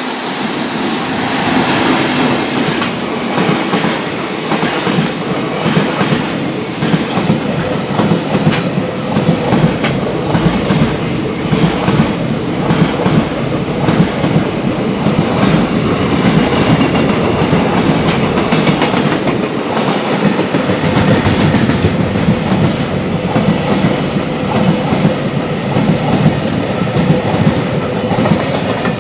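Freight train passing at speed, its wagons' wheels clattering over the rail joints in a long run of repeated clicks.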